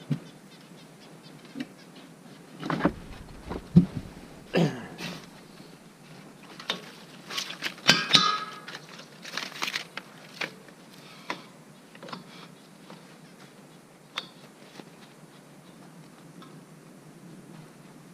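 Dry dead balsam fir twigs snapping and crackling as they are broken off by hand for kindling, in clusters of sharp cracks with pauses between.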